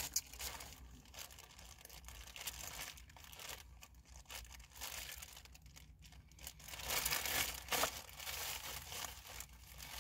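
Plastic food bag crinkling and rustling in irregular bursts as it is handled and opened, loudest about seven to eight seconds in.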